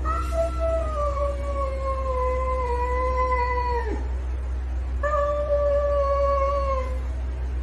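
A cat yowling in two long drawn-out calls, the first lasting about four seconds and sagging slowly in pitch before breaking off, the second shorter after a brief pause. A steady low hum runs underneath.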